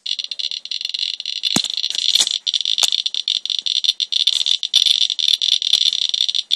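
Inspector EXP+ Geiger counter chirping rapidly and irregularly, its counts running together into a dense crackle at around 1,300 to 1,500 counts per minute: a strongly elevated reading from a swipe of rainwater, roughly twenty times normal background. A few sharper knocks stand out about one and a half and three seconds in.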